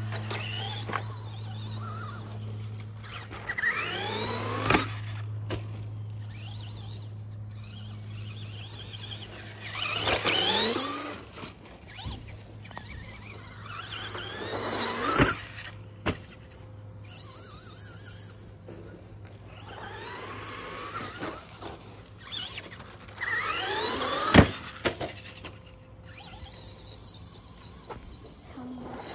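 Traxxas Rustler RC truck with a VXL brushless system accelerating in short bursts: its motor and drivetrain whine rises steeply in pitch five times. Several bursts end in a sharp knock, and the loudest knock comes near the end.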